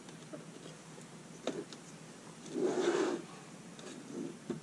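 Handling noise from a partly assembled box housing being turned and repositioned on a cutting mat: a light knock about a second and a half in, a longer rubbing sound near the middle, and a small click near the end.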